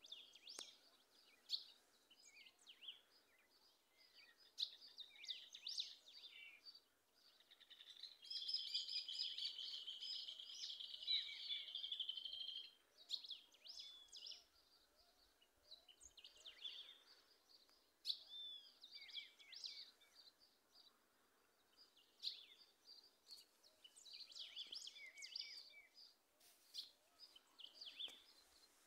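Small birds calling and singing: scattered short chirps throughout, and from about eight seconds in a continuous rapid warbling song lasting some four and a half seconds, the loudest part. Faint, quick repeated chirps sound lower down a little later.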